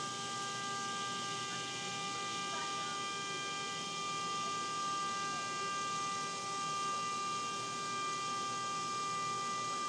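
Horn of a burning truck sounding without a break at one steady pitch, set off by the fire.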